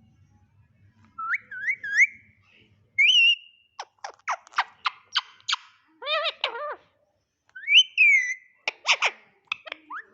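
Pet talking parrot whistling short rising and falling notes, mixed with a quick run of sharp clicks and a brief raspy call about six seconds in.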